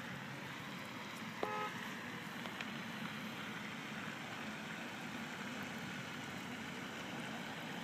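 Steady outdoor background noise, an even hiss with no clear source. A short, high, pitched tone sounds once about a second and a half in.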